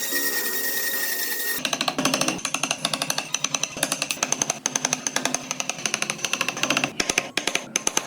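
A power tool working wood, steady with a high whine at first. About a second and a half in it gives way to a rapid, irregular clatter of knocks.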